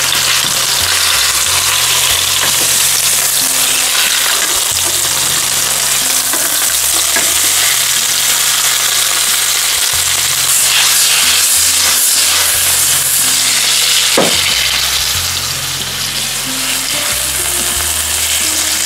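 Fresh tuna fillets sizzling steadily in hot oil in a non-stick frying pan, searing on their second side, with an occasional soft tap.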